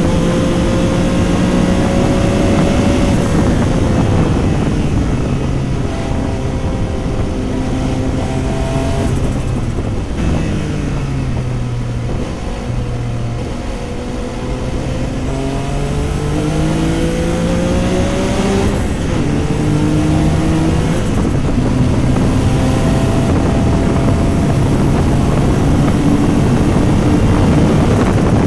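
Porsche 956 race car's twin-turbo flat-six engine heard onboard, running hard through the gears. The note climbs and steps down at upshifts, falls away for a few seconds near the middle as the driver comes off the throttle, then climbs again.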